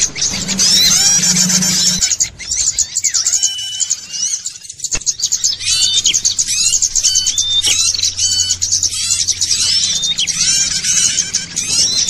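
Bird-lure recording of many small birds chirping and twittering at once in a dense, agitated chorus of short calls and whistled glides, used as a call to draw wild birds in. It thins out briefly about two seconds in, with a single click about five seconds in.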